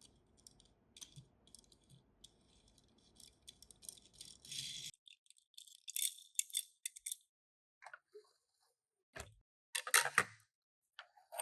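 Small die-cast toy cars and their plastic parts rattling and clicking as they are handled, in quick irregular bursts. The background hiss cuts off about five seconds in; after that the clicks are sparser, with one louder clatter near the end.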